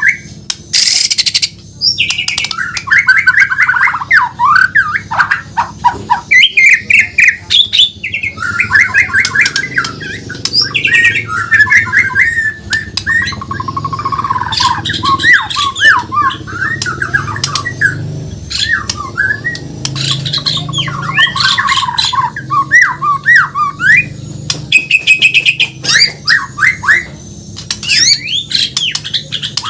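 White-rumped shama (Borneo murai batu) singing loudly and continuously: a rapid, ever-changing stream of whistled phrases, fast trills and sharp clicking notes with only brief pauses.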